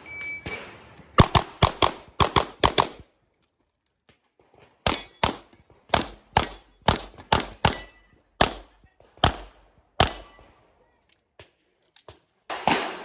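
An IPSC shot timer's short start beep, then rapid handgun fire: a quick string of shots, a pause of nearly two seconds, and a second, longer string.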